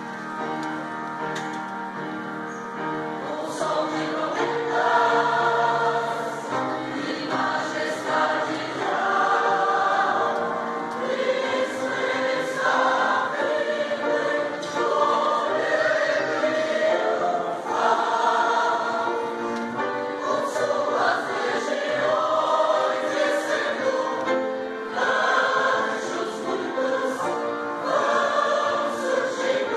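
Church choir singing a hymn, softer for the first few seconds and then fuller.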